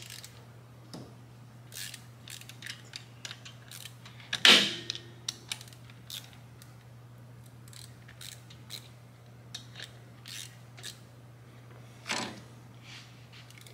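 Small metallic clicks and taps of a hand wrench working the cam sprocket and crank pinion bolts on a Harley-Davidson Twin Cam cam chest, with one sharper ringing click about four and a half seconds in and another near the end. A steady hum runs underneath.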